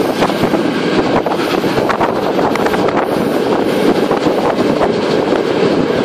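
Steam-hauled passenger train running, heard from an open coach window: a steady rumble of the coaches' wheels on the rails, mixed with wind buffeting the microphone.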